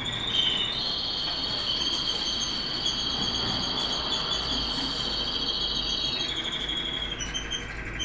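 Domestic canary singing a long, rapid trill held on two high, steady notes for several seconds. It shifts to a slightly lower phrase, then starts again near the end.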